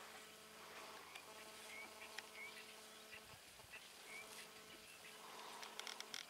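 Faint bush ambience: a steady buzzing of insects with a few short bird chirps, and a brief run of clicks near the end.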